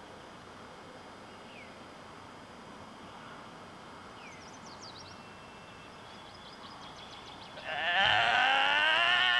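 Faint outdoor background with a few small bird chirps, then about three-quarters of the way in a loud, quavering, bleat-like cry starts and holds steady.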